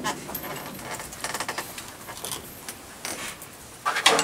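Light clicks and rattles of metal drum-kit and mic-stand hardware being handled, with a quick run of small clicks about a second in and a few sharper knocks near the end.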